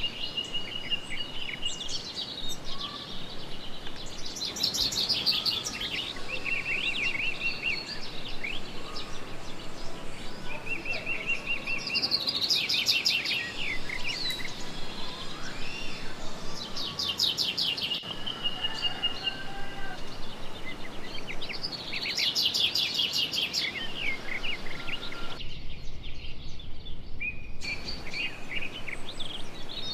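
Several songbirds singing: fast, high trilling phrases repeat every few seconds, with shorter chirps and calls between them.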